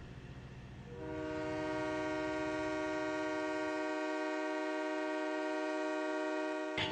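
A train horn sounding one long steady chord of several notes, starting about a second in and cutting off just before the end, over a faint low rumble.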